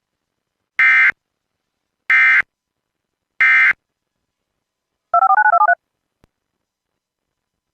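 Emergency Alert System end-of-message: three short bursts of SAME digital data tones, about 1.3 s apart, marking the end of the alert. About a second and a half after the last burst comes a brief warbling electronic beep that steps between two pitches.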